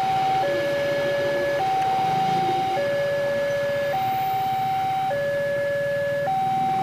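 Railway level-crossing warning alarm sounding: an electronic two-tone signal that alternates between a higher and a lower tone, each held a little over a second, warning that the barriers are down.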